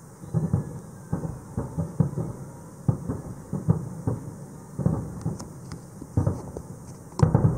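Fireworks display: a quick, uneven run of heavy bangs, about two a second, each trailing off into a rolling echo, with a cluster of louder bangs near the end.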